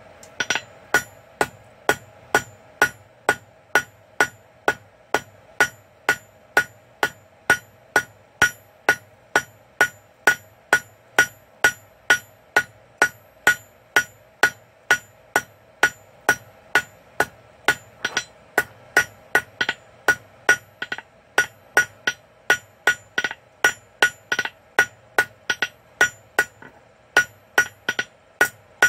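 Hand hammer striking hot quarter-inch steel bar on an anvil in a steady rhythm of about two blows a second, each with a short metallic ring, as a long taper is drawn out square, round and octagon. A steady low hum runs underneath.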